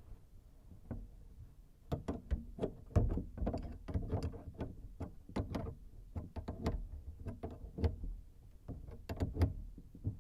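Irregular clicks and knocks of hand tools and faucet parts being handled during a kitchen faucet installation, starting about two seconds in over a low steady rumble.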